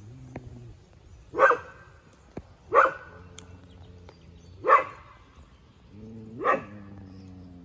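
A dog barking four times, spaced about one and a half to two seconds apart: alarm barking at a goanna that has fled up a tree.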